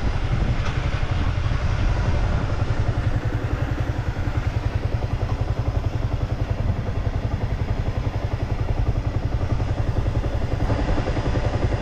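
Yamaha M-Slaz's 155 cc single-cylinder engine running with a steady, rapid pulse.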